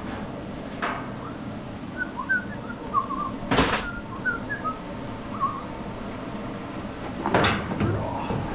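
A walk-behind lawn mower being handled and stood up on end: a few separate knocks and rattles, the loudest about three and a half seconds in. A small bird chirps in short notes in the background through the middle of the stretch.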